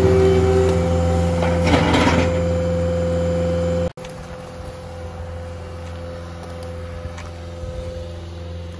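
Engine running steadily, with a short noisy crunch about two seconds in; about four seconds in the sound drops abruptly to a quieter, steady engine hum.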